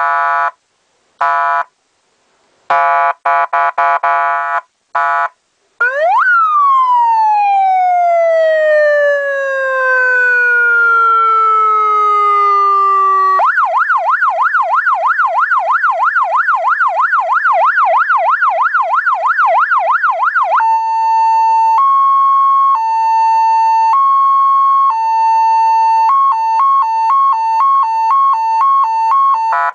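Electronic vehicle PA siren sounding through its loudspeaker and stepping through its tones. First come short, irregular blasts of a buzzy horn tone. About six seconds in, a quick rise gives way to a long, slowly falling wail. Then comes a rapid yelp sweeping up and down about three to four times a second, then a slow two-note hi-lo, and near the end a faster two-note alternation.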